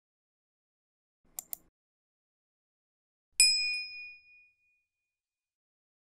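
Two quick clicks, then a single high metallic ding that rings out and fades over about a second.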